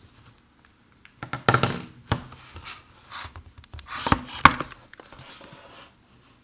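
Handling noise: clusters of knocks, scrapes and rubbing, loudest about a second and a half in and again around four and a half seconds in.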